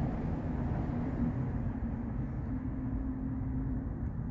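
Steady low background rumble with a faint droning hum and no distinct events.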